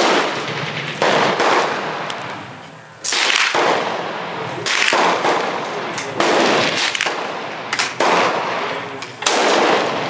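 Gunshots fired one after another, about six in ten seconds, each a sharp crack with a long echoing tail.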